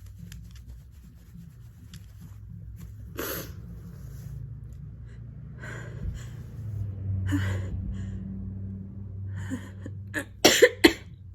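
A person with a head cold in a sneezing fit: a few short breathy bursts scattered through the first part, then a quick run of three sharp, loud sneezes near the end.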